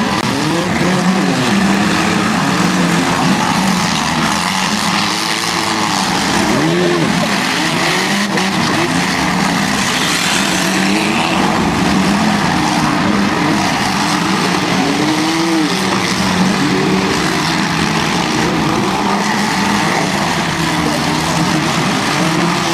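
Several demolition derby cars running at once, their engines revving up and down over and over as they accelerate and reverse around the arena, with some tire squeal.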